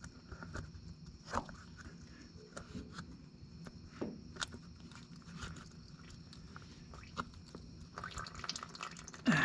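Faint, scattered small clicks and metal taps from hand-working the brake actuator rod and its pressed-in seal ring on a tractor's rear end. Noisier handling comes near the end, with a louder sound at the very end.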